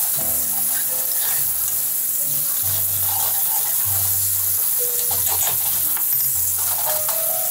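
Button mushrooms sizzling in butter and stock in a hot skillet, stirred around the pan with a utensil.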